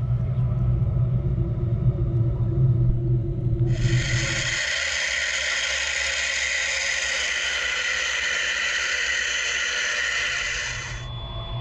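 ONA wire EDM cutting a 316L stainless steel part submerged in its water-filled work tank. A low rumble for the first few seconds gives way to a steady hiss from about four seconds in, which stops shortly before the end.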